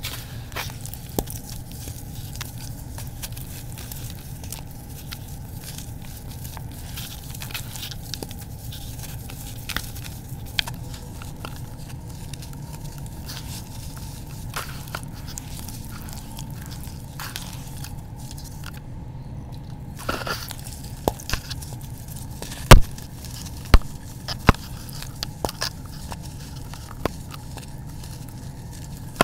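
Hands squeezing and kneading wet, gritty red dirt paste in a plastic bucket: steady squelching and crunching of grit, with many small crackles. Several sharp clicks come in the last third, the loudest about three-quarters of the way through.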